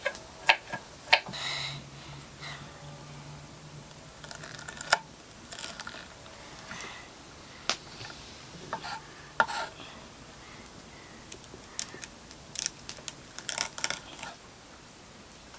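Knife chopping vegetables on a cutting board: irregular sharp taps and knocks, with a quicker run of taps near the end.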